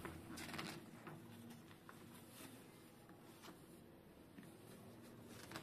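Near silence, with a few faint rustles and light taps of a paper instruction booklet's pages being turned.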